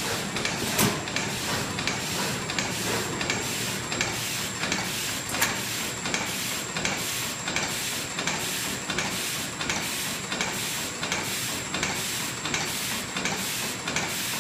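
Bag-making machine for welded, blocked plastic bags running through its cycle: an even mechanical chatter repeating about one and a half times a second over a constant high whine. A sharper knock comes about a second in and again a little past a third of the way through.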